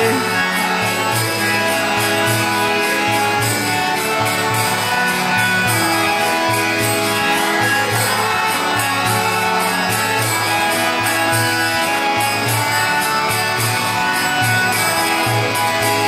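Harmonium playing a sustained, droning kirtan melody in an instrumental interlude between sung lines, over a steady rhythmic percussion beat.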